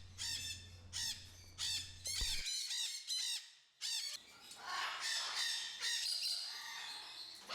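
Parrots squawking: a run of harsh, arching calls about twice a second. About two and a half seconds in it breaks off, then gives way to a denser chorus of many birds calling over one another.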